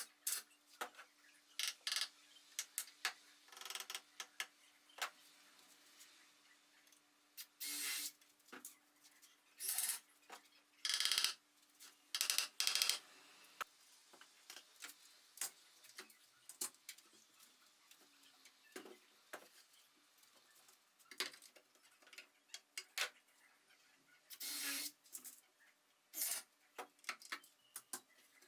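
Irregular clicks and taps mixed with short scraping or rubbing strokes, hand work on wood pieces, over a faint steady hum.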